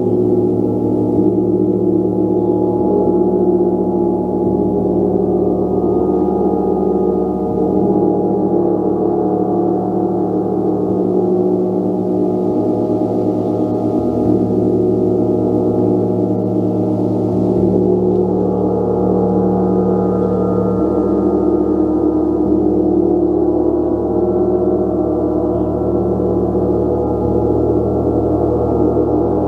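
Gong played in a continuous, steady wash: many sustained ringing tones blended together, with no single strike standing out and the lower tones shifting every few seconds.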